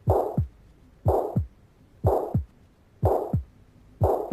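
Recorded heart sounds of mitral regurgitation: each beat a low thud followed by a harsh, steam-jet-like holosystolic murmur that fills the gap to the next thud. It repeats evenly at about one beat a second, five beats in all.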